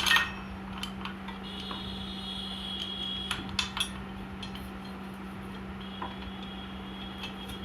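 Motorcycle disc brake pads and their metal backing plates being handled and rubbed on abrasive paper to clear the dust that makes the brake squeak: sharp metallic clinks at the start and a few seconds in, with stretches of thin, high scraping. A steady low hum runs underneath.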